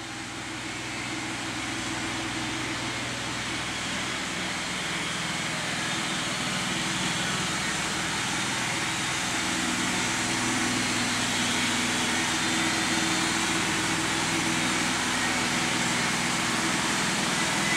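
Steady mechanical whir and hiss of body-shop machinery with a low hum underneath, growing gradually louder.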